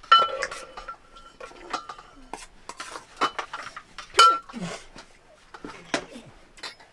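Stainless steel pots, plates and a ladle clinking and knocking together as food is served and eaten, with scattered sharp clanks that ring briefly; the loudest comes right at the start and another about four seconds in.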